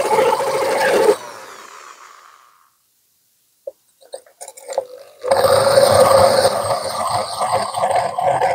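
Corded electric drill with a 28 mm diamond-tipped hole-saw bit grinding into the base of a clay pot, still starting the hole at an angle before the bit has bitten in. About a second in the drill stops and its motor winds down. After a few light knocks it starts again and grinds on.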